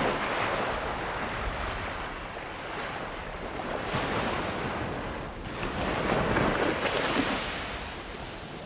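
Ocean surf: waves washing in and ebbing, the hiss swelling three times, near the start, about four seconds in and again about six to seven seconds in.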